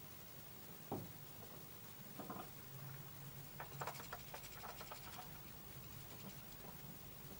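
Faint taps, knocks and scratching from finches on a plastic feeder tray heaped with sunflower seeds: a sharp knock about a second in, then a quick flurry of clicks and taps around four seconds in as a bullfinch lands beside the feeding goldfinch.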